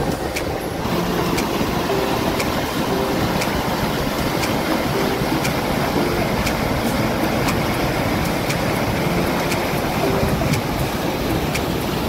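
Muddy floodwater rushing and churning over a low concrete weir: a steady, dense rush of turbulent water.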